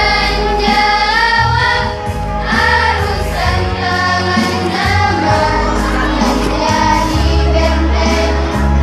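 A madrasah choir singing a hymn together over an instrumental backing with sustained bass notes.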